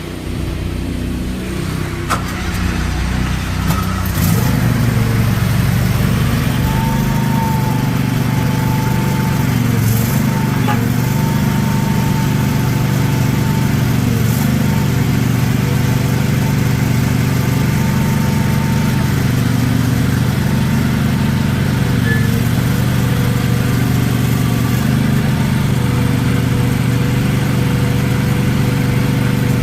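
Gasoline engine of a CFG MX50R mini excavator running. It builds up over the first four seconds, then runs steadily, with a faint high whine for several seconds in the middle.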